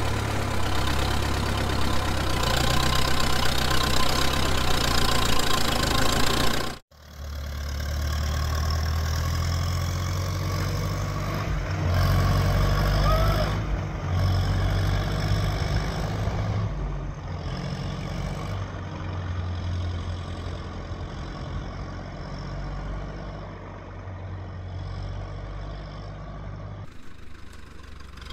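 1942 Silver King Model 41 tractor's engine running steadily as the tractor is driven along a road. The sound cuts off abruptly about seven seconds in, comes back, and then grows gradually fainter toward the end as the tractor moves away.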